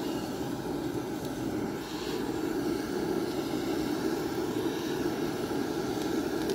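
A steady low rumbling noise, like a vehicle running or wind, with no distinct tones.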